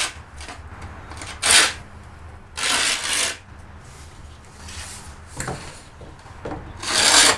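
Paint scraper scraping old glue off the tongue of an engineered wood floor plank, in a few separate strokes with the loudest near the end.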